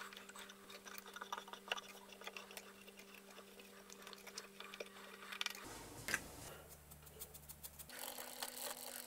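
Faint scattered clicks and scratches of an M6 tap being turned by hand into leaded mild steel, over a steady low hum that changes about two-thirds of the way through.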